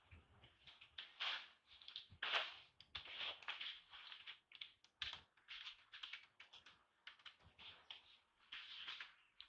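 Faint, irregular soft clicks and smacks, several a second, from long-tailed macaques at close range as one grooms another and infants suckle.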